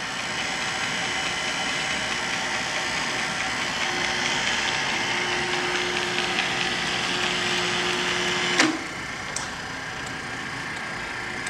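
Arboga GM2508 geared head drill press running in reverse with its power quill feed raising the spindle: a steady mechanical hum and gear whine. About four seconds in a low steady hum joins; past the middle a sharp clunk, after which the running noise drops to a quieter hum.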